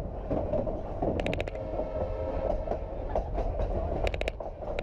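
Durango & Silverton narrow-gauge train rolling along, heard from on board: a steady rumble of the running gear with two short bursts of rapid clicking about three seconds apart.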